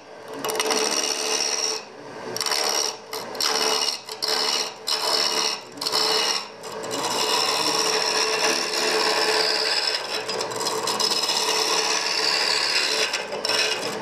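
A gouge cutting a spinning wood blank on a lathe, a dry hissing scrape: several short passes in the first half, then one long continuous cut. A steady hum runs underneath.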